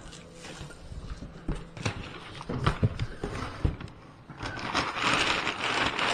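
Cardboard box flaps being opened, with knocks and scrapes against the cardboard, then brown kraft packing paper being pulled out of the box and crumpling loudly from about four and a half seconds in.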